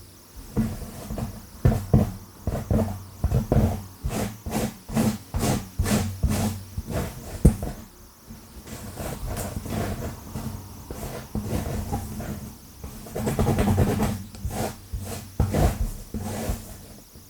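Long fingernails scratching and raking through hair on a scalp, in fast, repeated strokes several a second.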